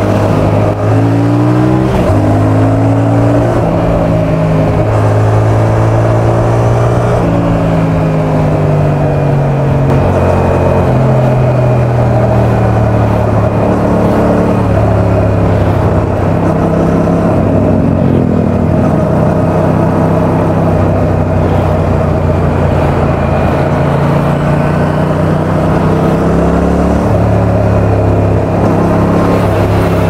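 Yamaha XSR700's 689 cc parallel-twin engine and exhaust under way, its revs climbing and dropping several times as the bike accelerates and slows. The sound is picked up from the rider's back pocket, so it is muffled.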